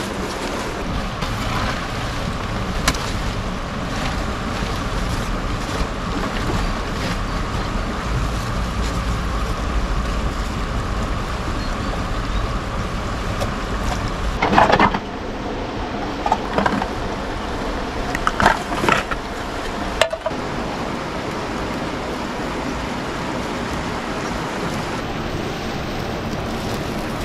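River water rushing steadily over rocks, with a few short knocks and rustles in the middle.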